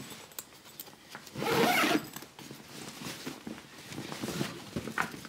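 Clothing rustle from a man's jacket: one short, loud rasp of fabric about a second and a half in, with small rustles and clicks around it.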